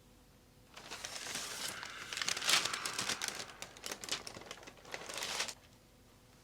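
Paper crinkling and rustling as it is handled, starting about a second in and stopping abruptly about five and a half seconds in.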